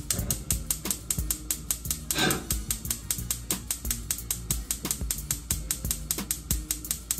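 Gas range spark igniter clicking rapidly and evenly, several clicks a second, as the burner is lit.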